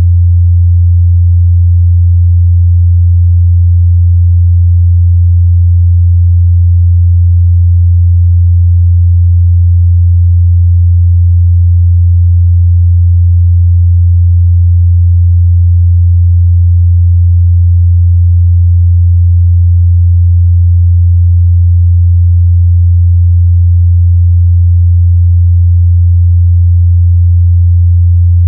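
Pure 87 Hz sine test tone, a single steady low hum held at constant loudness, used to check a speaker's or headphone's mid-bass response.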